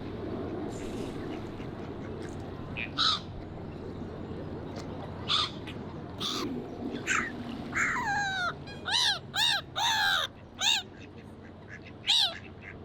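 Water birds squabbling over food at a pond, giving about ten loud harsh calls that each rise and fall in pitch, scattered at first and then in a quick run near the end, over a steady low background rumble.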